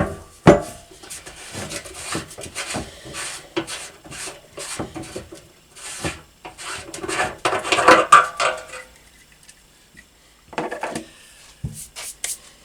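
Workshop handling noise: irregular knocks, clinks and scraping of small metal parts as a float switch sensor is worked into a petrol tank's opening. Two sharp knocks come right at the start, and the handling pauses for a moment near the end.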